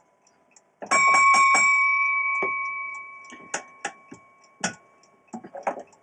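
Signal-box block bell struck about five times in quick succession, a bell code, then ringing away over a couple of seconds. A few scattered sharp clicks and knocks follow.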